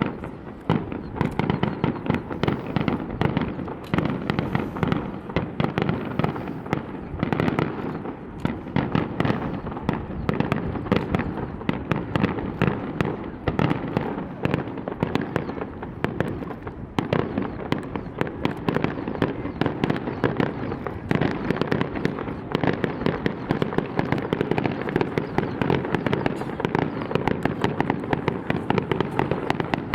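Fireworks display: a dense, continuous barrage of shells bursting and crackling, many sharp bangs a second with no let-up.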